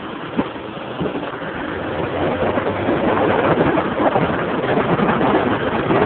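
Honda CG Titan motorcycle's single-cylinder four-stroke engine running under way, growing louder about two seconds in as the bike picks up speed.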